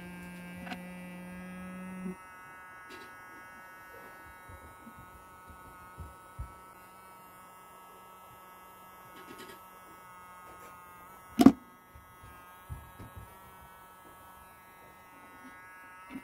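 Homemade hot air soldering gun running, its small fan motor giving a steady electric hum with a thin whine above it. The low part of the hum drops in level about two seconds in, and one sharp click stands out past the middle.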